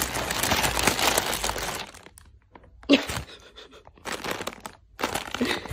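Clear plastic bags crinkling and rustling as a cat shifts about on them, in bursts, with a short louder sound about three seconds in.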